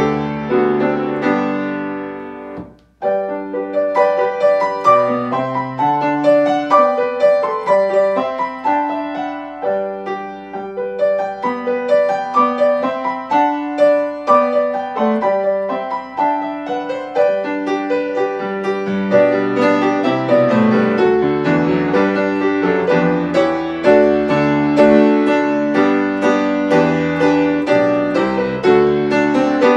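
Solo piano playing a hymn tune in full chords. About three seconds in, a held chord fades to a brief gap, then the next verse begins and the playing runs on steadily.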